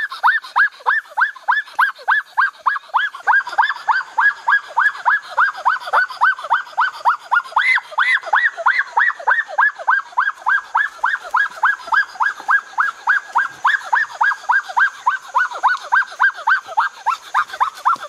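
An animal calling over and over without a break, about four to five short rising-and-falling cries a second.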